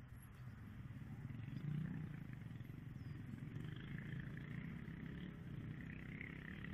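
Distant racing motorcycles: a low, steady engine drone with faint revs rising and falling.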